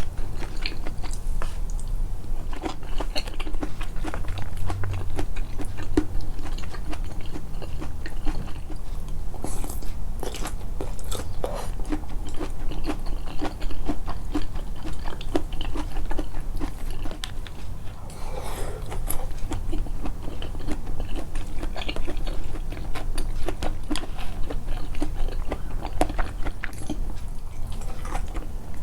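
Close-miked chewing and biting of food, with many small wet mouth clicks and some crunching.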